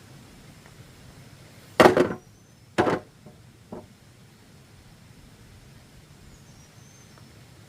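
Sharp knocks on wood: two loud strikes about two and three seconds in, then a fainter one just after, over a low steady background.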